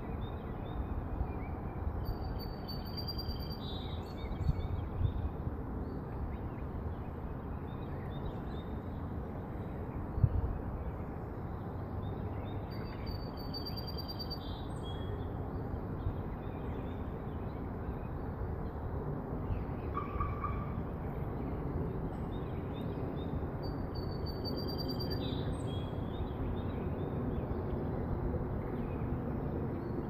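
A songbird sings a short high phrase three times, about every eleven seconds, over a steady low hum of distant traffic. A single brief thump comes about ten seconds in.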